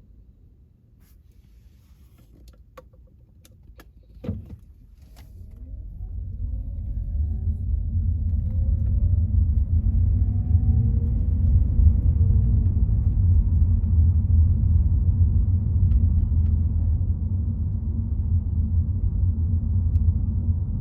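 Car driving: after a few light clicks and a thump, a low road-and-engine rumble builds from quiet about six seconds in as the car gets moving and speeds up, the engine pitch rising, then holds steady.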